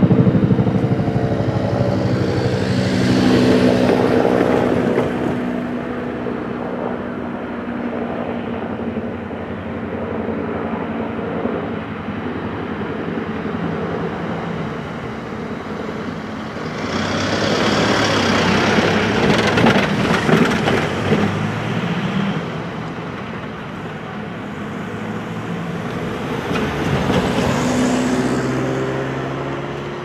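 Passing road traffic: vehicle noise swells and fades three times, a few seconds in, more loudly and longest in the second half, and again near the end, over a steady traffic hum.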